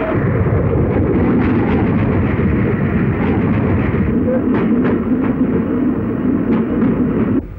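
A steam train passing at speed: a loud, continuous noise of the locomotive and the wheels on the rails, with scattered sharp clicks. It cuts off suddenly near the end.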